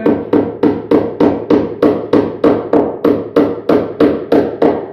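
Hammer driving nails into wooden rafters to pin wire mesh, in a steady run of about eighteen quick strikes, nearly four a second.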